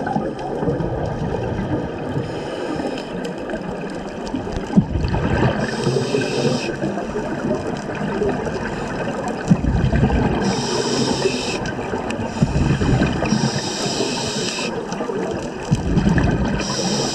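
Scuba diver breathing through a regulator, heard through the camera's underwater housing: a hiss on each breath and a gurgling rumble of exhaled bubbles, repeating every three to four seconds.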